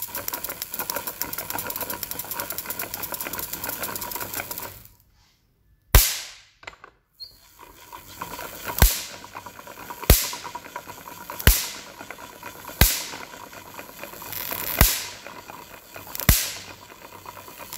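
Hand-cranked Wimshurst electrostatic machine making sparks across its spark gap. First a fast, dense crackle for about five seconds, then after a short pause a series of single sharp spark cracks, about seven in all, roughly one every one and a half seconds, with a softer sound building before each crack as the charge builds up.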